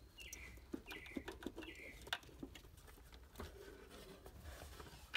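Faint scattered clicks and light rattling of hands working a car's ECU box and wiring harness loose under the dashboard, with three short, high, falling chirps in the first two seconds.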